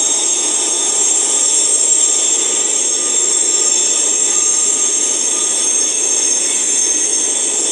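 Freight train rolling steadily past as a long string of open-top coal cars goes by on the rails, with a steady high-pitched squeal over the rumble.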